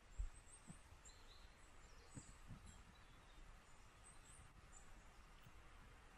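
Faint birdsong: scattered short, high chirps over quiet outdoor ambience, with a few soft low thumps near the start and about two seconds in.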